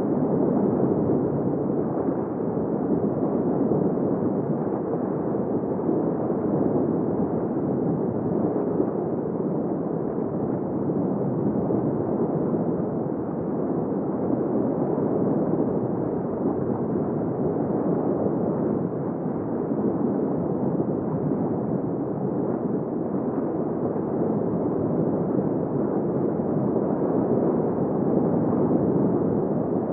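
Underwater sea-floor ambience of crustaceans: a steady, dense noise with no distinct single events, swelling slightly now and then.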